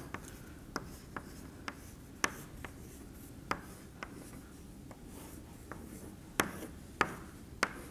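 Chalk on a blackboard as a diagram is drawn: irregular sharp ticks and short scratches of the chalk against the board, the strongest ones near the end.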